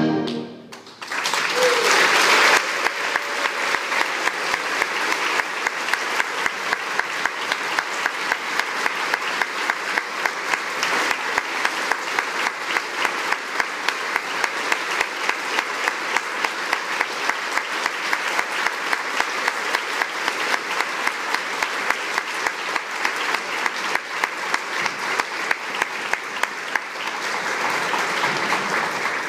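Audience applause in a hall, starting right after the band's music ends, with a louder burst of cheering about two seconds in. Through most of it one steady clapping beat stands out above the rest, and the applause swells a little near the end.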